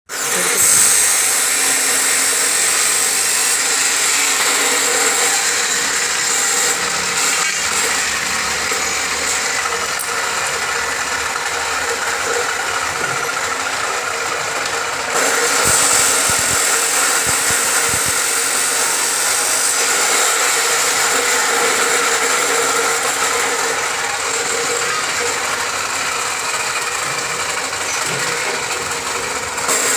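A machine running steadily for the whole stretch, a continuous high hiss with a faint whine underneath. The top of the hiss drops away a few seconds in and comes back about halfway through.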